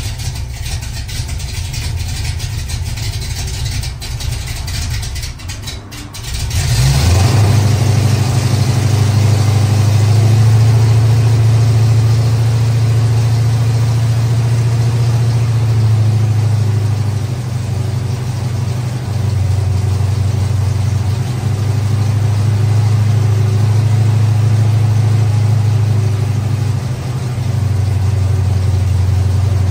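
Chevy Nova engine with a new Quick Fuel Brawler carburetor, intake and valve covers, running on its first start-up in a long while. For about six seconds it runs rough and uneven, dips briefly, then picks up and settles into a louder, steadier fast idle that rises and falls slightly.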